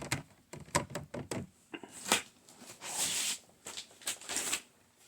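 Graded comic books in hard plastic CGC slabs being handled: a string of sharp plastic clicks and clacks with a few short rustles, the longest about three seconds in.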